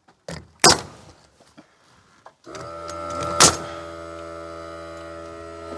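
Two sharp knocks on wood early on, then a small motor starts about two and a half seconds in and runs with a steady hum, with one sharp bang about a second after it starts.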